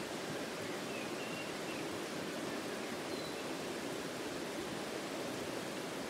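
Steady rush of a shallow stream running over stones.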